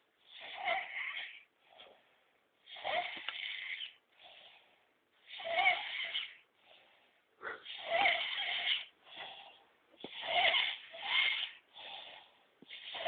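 Sleeping pet snoring hard: a loud, rasping snore about every two and a half seconds, each followed by a fainter breath.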